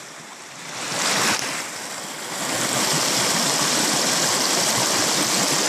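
Small mountain creek rushing over rocks, a steady noise of running water. It is fainter at first, swells about a second in, and grows louder and steady from about halfway.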